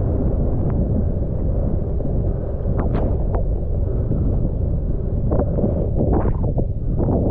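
Wind rushing over a GoPro Hero12's microphone during a ski run, a steady low rumble. Brief scrapes of skis on snow come through about three seconds in and several times in the last two seconds.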